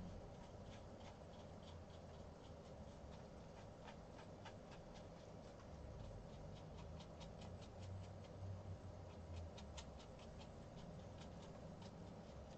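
Faint, irregular scratchy ticks of a small paintbrush working over textured watercolour paper while glazing out a thin wash, over a low steady hum.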